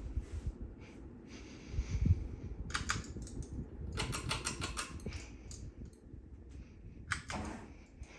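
Harbor Breeze Tempest four-blade ceiling fan running, with an uneven low rumble. Two bursts of rapid clicking come about three and four seconds in, and a shorter one comes near the end.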